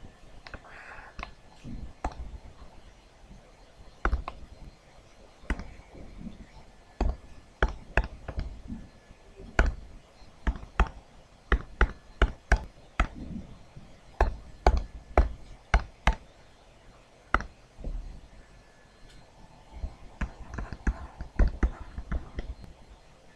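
Sharp, irregular clicks and taps of calculator keys being pressed one after another to enter a calculation, coming several a second in a busy run from about seven to sixteen seconds in, with a few more near the end.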